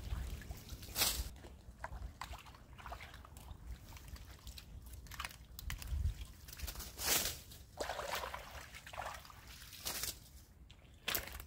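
Water sloshing and splashing, with irregular crunches and knocks.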